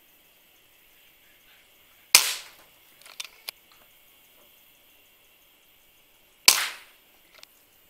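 Two shots from a PCP air rifle, about four seconds apart, each a sharp crack that dies away quickly. A few small clicks and knocks follow the first shot.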